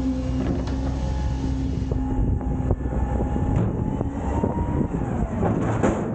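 Autocar/Heil front-loader garbage truck's engine and hydraulics running under load as the forks lower an emptied dumpster: a steady low rumble with a held tone and fainter shifting higher tones, broken by several metal clanks and knocks.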